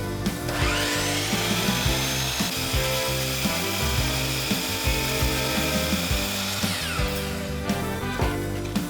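A handheld power tool spins up about half a second in, runs steadily on wood, and winds down near the end, over background music with a steady beat.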